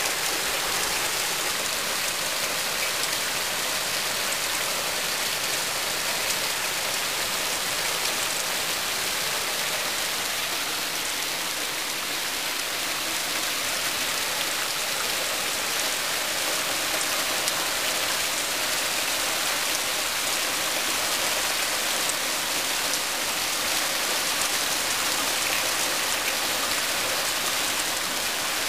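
Heavy cloudburst rain falling steadily, an even hiss of rain on the ground, roofs and trees.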